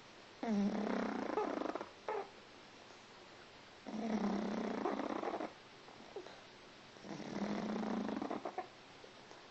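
Snoring: three long snores about three seconds apart, each lasting about a second and a half, with a short extra sound just after the first.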